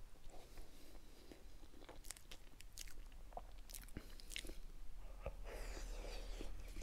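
Soft, close-miked mouth sounds of a man eating boiled tubers: scattered small wet clicks of chewing and biting, with a short breathy noise near the end.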